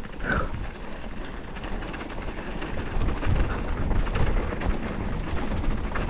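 YT Capra mountain bike riding down a dirt trail, heard from a bike-mounted action camera: tyres crackling over dirt and gravel with the bike rattling, and wind rumbling on the microphone. It gets louder about halfway through as the bike picks up speed.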